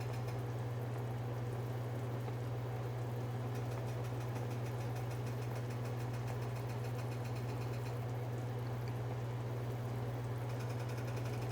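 Pot of chicken thighs at a rolling boil: steady bubbling over a constant low hum.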